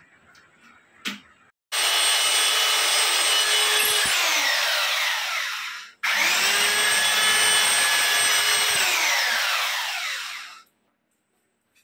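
Corded electric drill boring a hole into the ceiling, run twice for about four seconds each: a steady high whine that winds down in pitch each time the trigger is released. A single short knock just before the first run.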